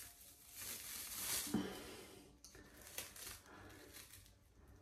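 Rustling of a head bandage being unwrapped and pulled off, with a scratchy stretch about a second in and a click about three seconds in.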